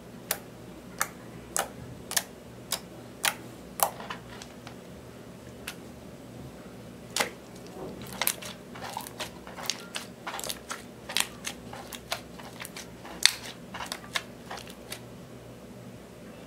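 Gold slime being poked and pressed by hand, giving sharp wet pops and clicks: about two a second at first, then a sparser, more irregular run of them.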